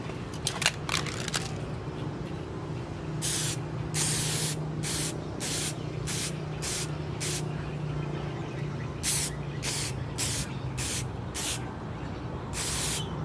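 Aerosol spray can fired in many short hissing bursts, about two to three a second, in two runs with a pause between, after a few clicks near the start.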